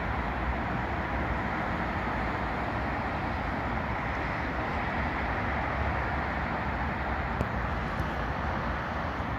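Steady noise of motorway traffic, an even wash with no single vehicle standing out.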